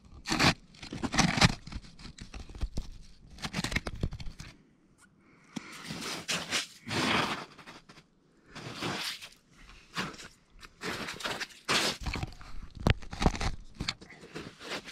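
Footsteps crunching and scraping on the frozen pond's ice, an uneven series of crunches about a second apart.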